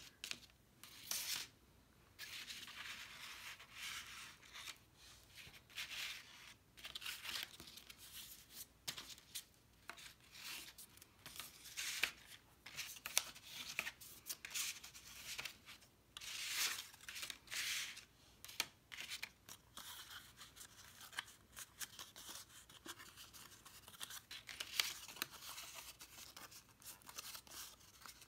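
Card stock being folded and creased by hand, with a bone folder drawn along the folds: irregular papery rustles, scrapes and rubs.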